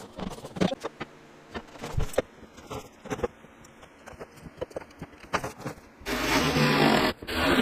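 Light knocks and clatter of parts being handled, then about six seconds in a handheld power tool runs in a loud burst of about a second.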